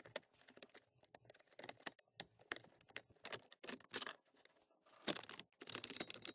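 Plastic steering-column cover panels being pried apart and handled: a scattered run of faint clicks, creaks and crackles from the plastic trim and its clips.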